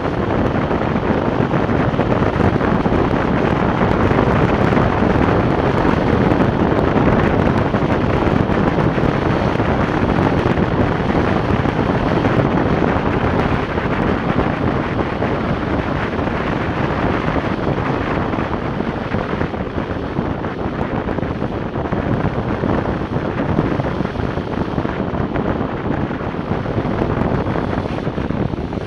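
Steady rush of wind over the camera microphone during a fast lying-down downhill board descent, mixed with the hiss of urethane wheels rolling on wet asphalt; a little quieter in the second half.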